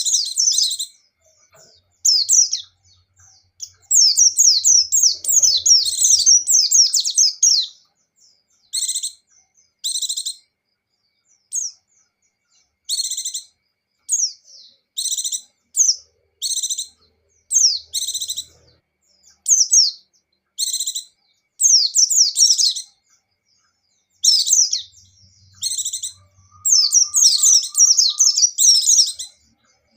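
White-eye (pleci) singing loudly in high-pitched chirps and fast, sliding notes. Short phrases come every second or two, with longer runs of rapid chatter about four seconds in and again near the end.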